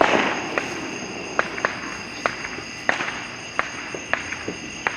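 Fireworks: a loud blast fades at the very start, then sharp pops and bangs go off at irregular intervals, about eight of them, some near and some farther off.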